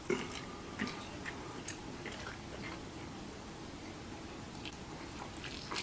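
Faint chewing and wet mouth clicks as a mouthful of food is tasted, in soft irregular ticks.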